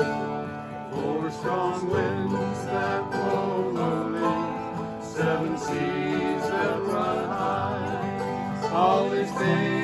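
Country-style band music: acoustic guitar and banjo picking under a wavering melody line.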